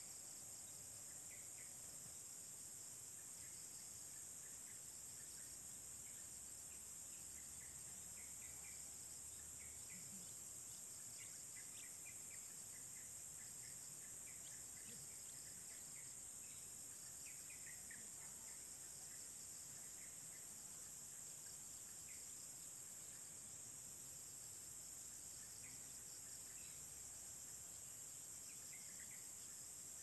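Faint, steady high-pitched chorus of insects trilling in fine rapid pulses, with short bird chirps scattered throughout.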